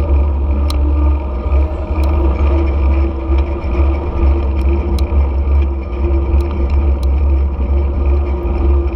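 Steady vehicle engine drone while riding through city traffic, with heavy low wind rumble on the GoPro's microphone and a few faint clicks.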